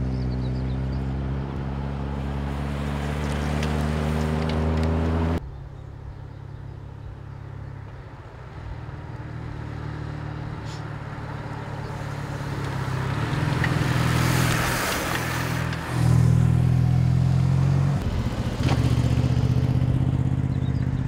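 Motor vehicle engine running steadily at road speed. The sound changes abruptly about five seconds in and twice more near the end. A rushing hiss swells and fades about two-thirds of the way through.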